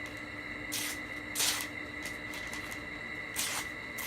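Knife blade drawn across sandpaper in sharpening strokes: three short scraping strokes, one a little under a second in, one about a second and a half in, and one near the end, over a faint steady hum.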